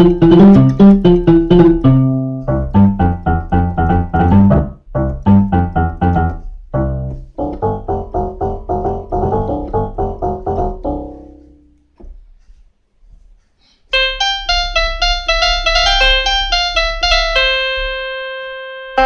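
Kawai FS660 portable electronic keyboard played by hand: short phrases of quick notes in one preset voice, stopping about twelve seconds in. After a brief pause, a brighter, higher voice plays a melody that ends on a held, fading note.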